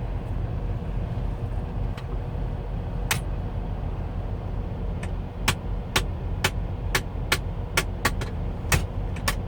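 Truck seat armrest being adjusted, clicking sharply as it ratchets: a few spaced clicks, then about two a second in the second half. This is the clicking noise heard in the cab. The truck's engine rumbles steadily and low underneath.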